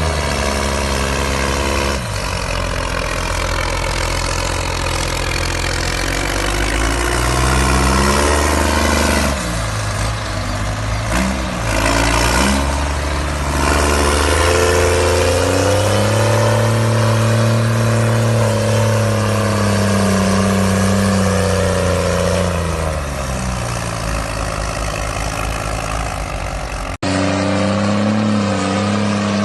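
Loud vehicle engine exhaust note, its pitch rising and falling as the engine is revved and eased off, with a long rise and fall partway through. The sound cuts off abruptly about 27 seconds in and resumes at a steadier pitch.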